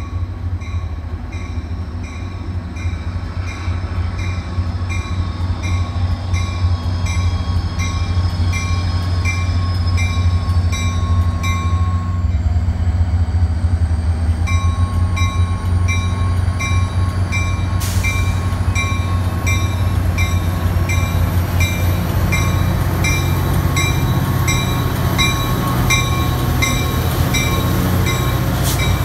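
Caltrain EMD F40PH-2 diesel locomotive approaching with its engine droning, growing louder as it draws near and passes. A bell rings steadily about twice a second over it.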